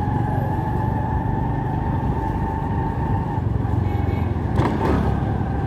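Honda CD70 motorcycle's small single-cylinder four-stroke engine running steadily under way in street traffic, with a steady whine that fades out about three and a half seconds in and a short sharper sound near the end.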